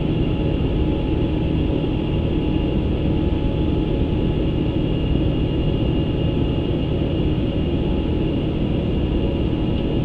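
Steady flight-deck noise of an Airbus A350 in the climb: airflow and the drone of its Rolls-Royce Trent XWB engines, a constant rumble with a few steady hums and a faint high whine running through it.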